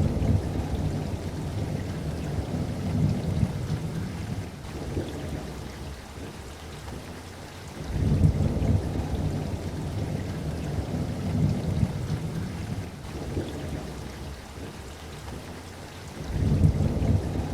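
Steady rain with rolls of thunder: a loud low rumble right at the start, another about eight seconds in and a third near the end, each dying away over several seconds.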